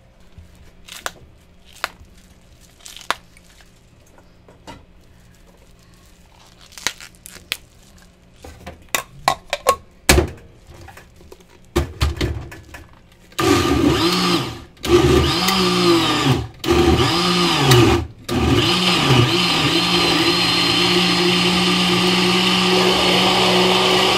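Scattered light knocks and clatter, then an electric blender motor. It starts and stops several times, its pitch sagging and recovering under load, then runs steadily for the last several seconds.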